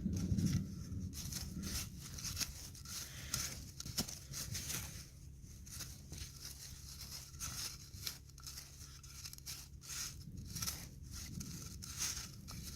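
Hands working in potting soil and pulling apart lavender seedlings to transplant them: a run of short, irregular rustles, scrapes and tearing sounds over a low steady rumble.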